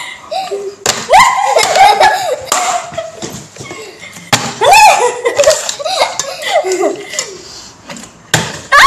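Women and a girl laughing, with bursts of lively voices between the laughs.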